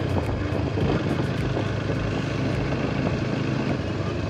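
Motorcycle engine running steadily while riding slowly, with a haze of wind and tyre noise on a wet road.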